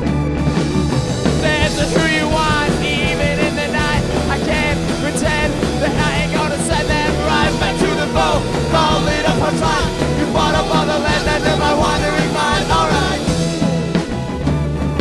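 Rock band playing live: an instrumental passage with a steady drum beat and bass under a high lead melody that wavers and bends in pitch, which falls away near the end.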